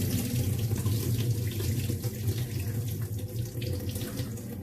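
Soaking water poured off a pot of swollen, soaked dried fava beans into a sink, a lid held over the pot to keep the beans back; a steady splashing stream that eases off slightly near the end.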